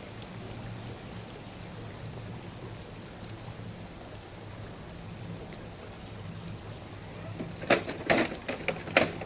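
Small electric RC rock crawler's motor and gears humming steadily over a wet hiss. Near the end comes a quick run of sharp knocks and clatters, the truck going over on the rocks in what went bad very quick.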